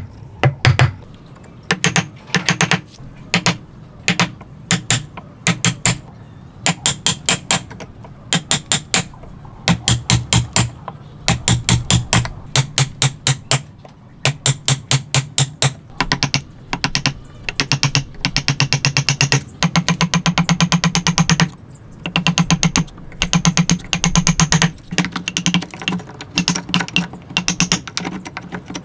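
Hammer blows on a chisel chopping a mortise into a timber block, in quick runs of several sharp strikes each, separated by short pauses.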